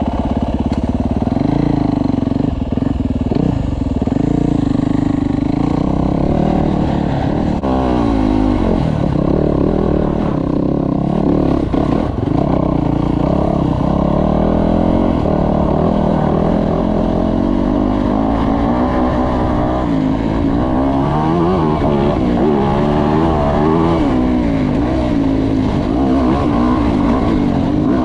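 Dirt bike engine running hard as it is ridden, its pitch rising and falling again and again with the throttle.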